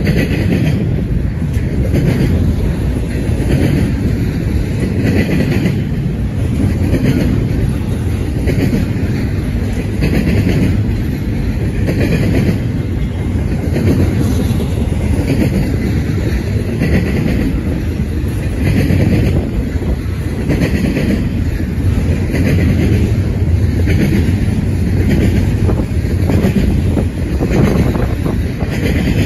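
Double-stack intermodal container well cars rolling past on the rails: a steady heavy rumble of steel wheels with a clickety-clack clatter that comes round again about every two seconds.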